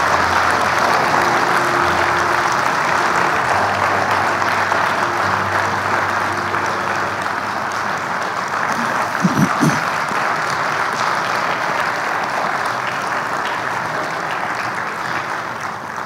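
Congregation applauding steadily, slowly dying away toward the end.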